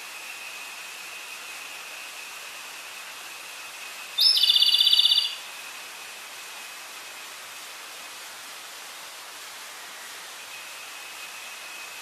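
Tledekan gunung, a small flycatcher, sings one loud phrase about four seconds in. The phrase is a rapid trill about a second long that opens with a quick upward sweep. Behind it are a steady hiss and a faint steady high tone.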